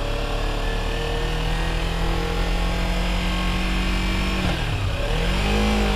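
Motorcycle engine running steadily under way, with wind and road noise. Near the end its note drops, then rises and falls in a brief free rev as a gearshift misses into neutral.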